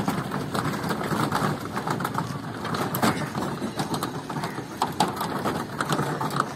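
Flat-bed sheet-metal handcart on small rubber-tyred wheels rattling as it is pulled along a bumpy dirt track, with many irregular knocks and clicks.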